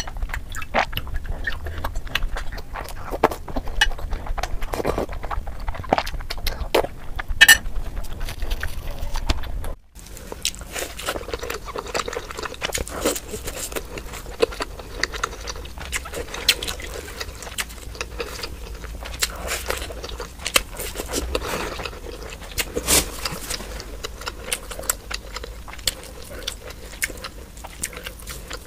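Close-up eating sounds of a person chewing and slurping soft, syrup-soaked Indian milk sweets such as rasmalai and rasgulla, with many sharp wet mouth clicks. The sound breaks off briefly about ten seconds in, then goes on.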